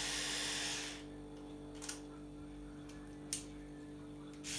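Electric toothbrush buzzing, switched off about a second in; two light clicks in the quiet that follows, and the buzz starts again near the end.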